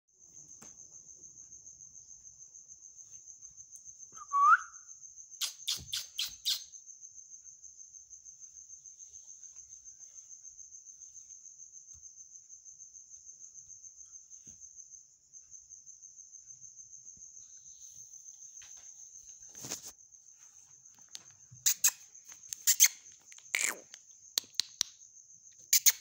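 A fast-pulsing, high-pitched insect chirping, like a cricket, runs on and on with one short break about halfway. About four seconds in, a ring-necked parakeet gives one short, loud rising whistle, and a quick run of five sharp taps follows. Scattered sharp taps come near the end.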